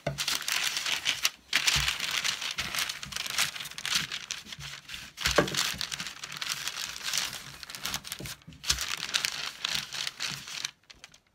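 Sheets of parchment paper crinkling and rustling as a wooden rolling pin rolls pie crust dough flat between them, in strokes with a couple of short pauses and a few soft knocks. It stops suddenly shortly before the end.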